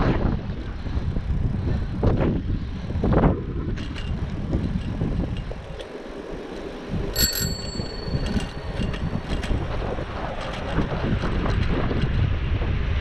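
Bicycle handlebar bell rung once about seven seconds in, its tone ringing on and fading over about two seconds. Wind rushes on the microphone throughout as the bike rides downhill.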